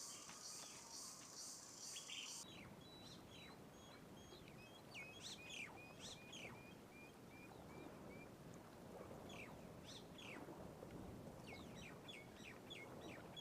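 Faint outdoor ambience of small birds chirping: scattered short, high, downward-sliding chirps, with a run of evenly repeated short notes, about two a second, in the middle. A high insect trill underneath stops about two seconds in.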